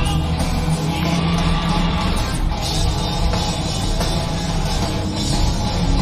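Rock band playing live in a concert hall with electric guitars and drum kit, recorded from the audience, loud and steady.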